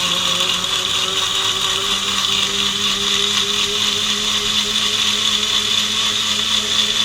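Hotstarr Bullet mixer grinder blending pomegranate seeds and sugar into juice with its wet blade, the motor running steadily at full speed. Its hum rises slightly in pitch about half a second in.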